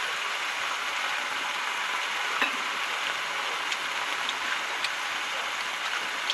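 Beef sirloin steak sizzling steadily in a pan on a portable gas stove, with a few light clicks of metal utensils.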